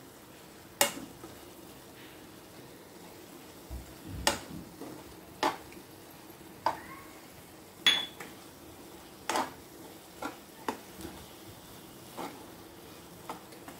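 A spoon stirring a thick coconut-and-jaggery filling in a non-stick pan, with about ten sharp, irregularly spaced clinks of the spoon against the pan over a faint sizzle from the pan on the heat.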